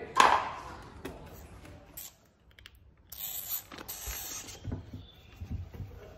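Small pet monkey clambering over a wooden cabinet and a plastic hamster cage: scattered light knocks, creaks and rustles, with a longer rustle about three seconds in.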